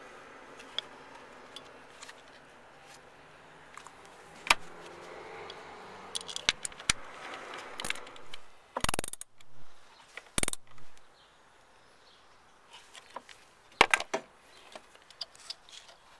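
Scattered clicks, light clatter and a few sharp knocks of plastic and metal parts being handled in a car's engine bay while a replacement ignition coil pack is fitted.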